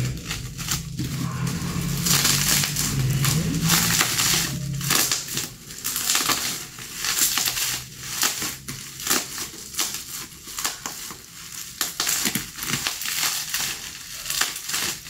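Bubble wrap crinkling and crackling as it is unwrapped by hand, in dense irregular bursts, loudest a couple of seconds in.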